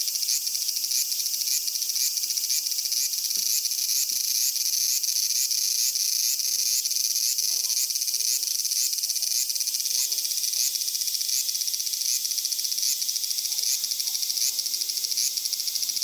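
Chorus of cicadas buzzing, a dense high-pitched drone with a steady pulse about twice a second.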